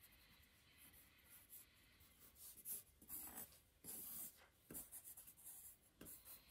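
Faint scratching of a pen on paper in quick, short sketching strokes, coming thicker and louder from about halfway through.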